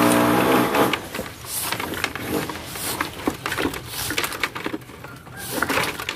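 Irregular light taps and clicks of hand work on a wall while a lightning-conductor cable and its fittings are fixed in place, with a small hammer tapping near the end. In the first second a loud, long, steady low call sounds.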